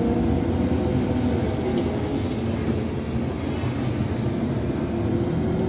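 Steady low rumble of an intercity bus's engine and tyres heard from inside the cabin while it drives, with a faint engine drone that drifts slightly in pitch.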